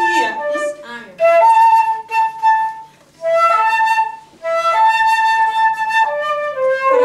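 Flute played slowly: long held notes, mostly on one repeated high pitch, in phrases broken by three short pauses.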